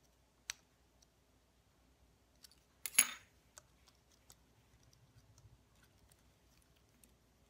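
Light clicks and ticks of fingers working the small quadcopter's plastic frame and wires. A single sharp metallic clatter about three seconds in, the loudest sound, rings briefly, like a small metal tool meeting the hard tabletop.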